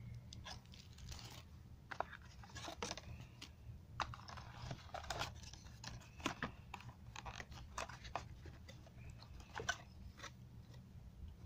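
Hands handling a phone's retail box and cellophane-wrapped accessories: irregular crinkling of plastic wrap with light clicks and scrapes of cardboard, over a low steady hum.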